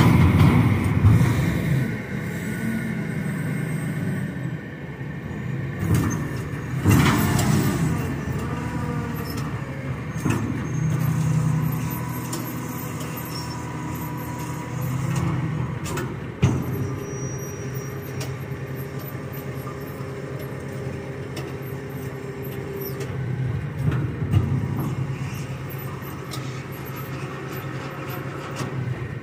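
Freightliner roll-off truck's diesel engine running steadily under load as its hydraulic hoist pulls an empty steel roll-off container up onto the bed. A few metal clanks and bangs from the container on the rails stand out, the sharpest about a third of the way in and about five seconds before the end.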